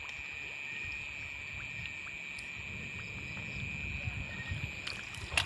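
Steady high-pitched drone of night insects, with a low uneven rumble underneath and a sharp click just before the end.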